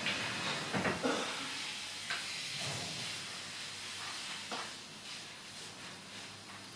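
Workshop handling sounds: a few light knocks and clicks over a steady hiss.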